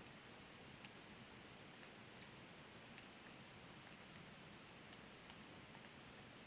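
Metal knitting needles clicking faintly against each other as stitches are knitted: a handful of short, irregular clicks over a quiet background hiss.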